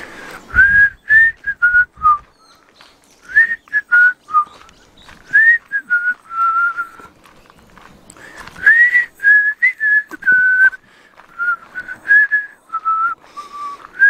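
A person whistling a tune: short phrases of clear, pure notes, each sliding up into its pitch, with brief pauses between phrases.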